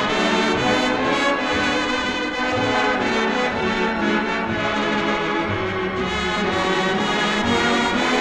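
Music: a full, brass-led orchestral arrangement playing sustained chords.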